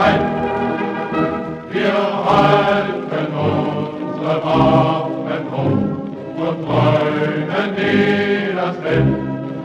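A choir singing a German Landsknecht song in sung phrases of a second or two, with brief breaks between them.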